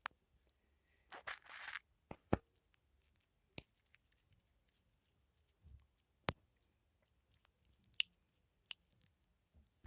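Foam handled close to the microphone: scattered soft crackles and squishes with a few sharp clicks, and one longer rustling burst about a second in.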